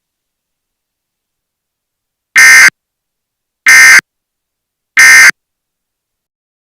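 Emergency Alert System end-of-message code: three short, loud bursts of digital data tones about a second and a quarter apart, marking the end of the severe thunderstorm warning broadcast.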